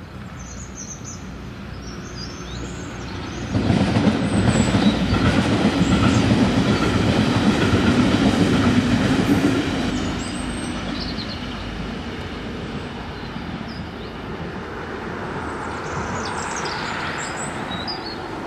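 DSB IC3 (MF) diesel multiple unit passing by. It builds as it approaches, runs loud for about six seconds from a few seconds in, then fades as it moves away.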